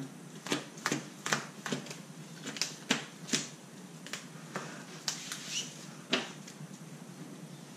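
Sharp irregular clicks and taps, a dozen or so, of sleeved playing cards being dealt face down into piles on a playmat and plastic deck boxes being handled and set down.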